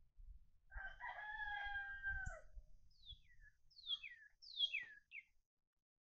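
Rooster crowing once, a long held call that drops in pitch at the end. Several short falling whistled bird calls follow it.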